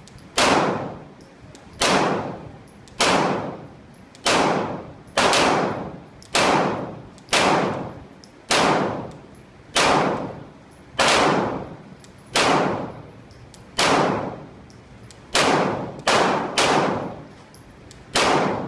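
Glock 22 pistol fired with a Lonewolf 9mm conversion barrel: a string of about sixteen single shots at roughly one per second, each ringing out briefly, with three quicker shots close together near the end.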